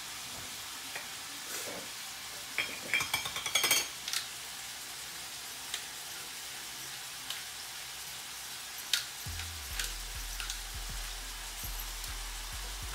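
Ground beef and chorizo frying in a cast-iron skillet with a steady sizzle. About three seconds in there is a cluster of clicks and rattles, with a few single ticks later. A low steady hum comes in about nine seconds in.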